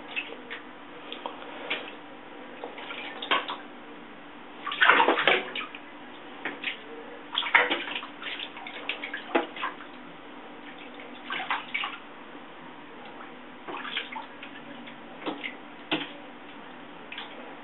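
Water in a bathtub splashed by a playing Savannah F2 cat: irregular splashes and slaps. The biggest come about five seconds in and again around seven and a half seconds, with smaller ones scattered in between.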